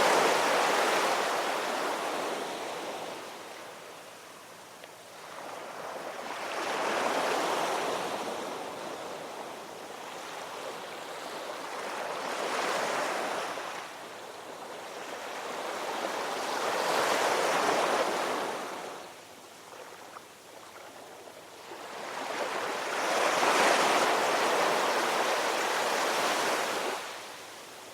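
Ocean surf: waves swelling and fading in turn, about five in all, one every five or six seconds.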